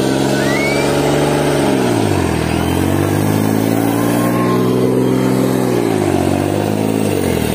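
New Holland 3630 tractor's three-cylinder diesel engine running at high revs, sagging and picking back up three times: about two seconds in, about six seconds in and near the end.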